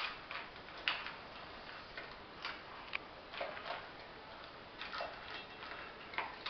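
Dog eating from a stainless steel bowl: irregular sharp clicks and clinks of teeth and food against the metal bowl, roughly one every half second to a second.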